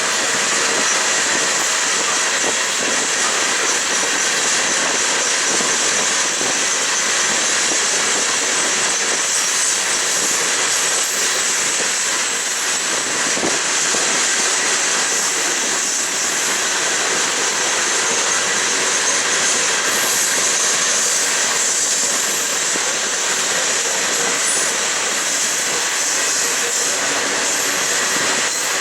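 Union Pacific coal train cars rolling past on the rails: a steady, continuous rumble and rush of wheels on track.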